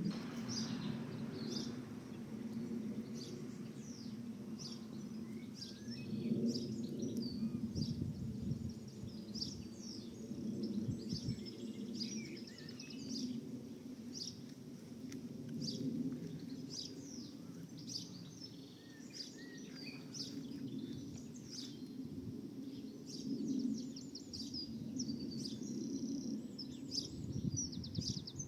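Small birds chirping and singing over and over, short high calls following one another, over a steady low rumble.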